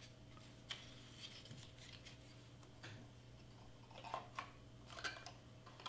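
Faint rustling and soft crackling of cardstock being handled and folded by hand, in scattered short touches that come more often in the second half, over a low steady hum.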